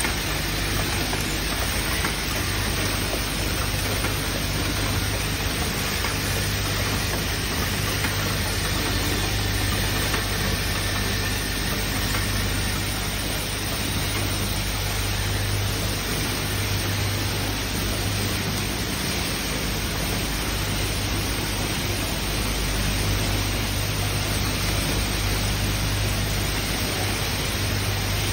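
Steady running noise of an automatic hinge assembly machine: a constant low hum under an even hiss, with no distinct clacks or strikes standing out.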